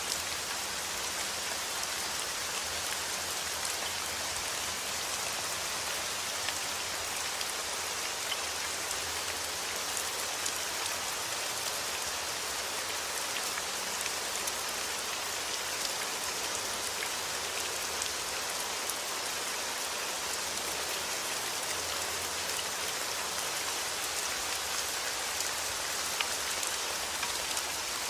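Steady rain falling, a constant hiss with many small drop patters scattered through it.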